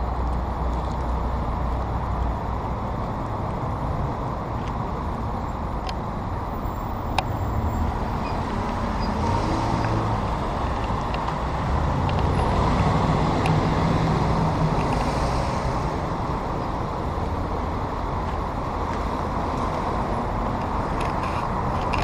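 Street traffic noise: a steady low rumble of passing vehicles, with a single sharp click about seven seconds in.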